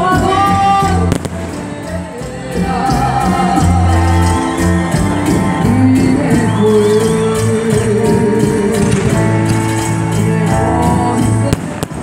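Music with singing over a fast, steady beat.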